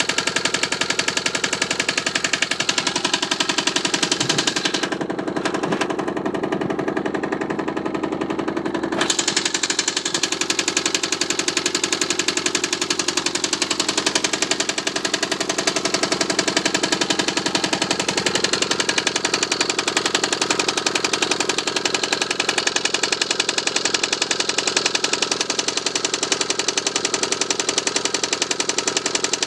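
Petter AC1 single-cylinder air-cooled diesel engine running steadily with a rapid, even knock, its freed-up injection pump letting it run like new. The sound goes duller for a few seconds about five seconds in.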